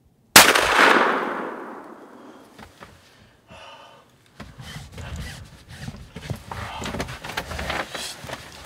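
Muzzleloader fired once: a sudden, very loud boom about a third of a second in that dies away over about two seconds. Quieter irregular knocks and rustling follow.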